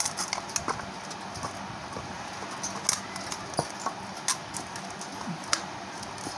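Hands kneading a flour dough in a steel plate: irregular soft slaps and knocks as the dough is pushed and pressed against the metal, over a faint steady hum.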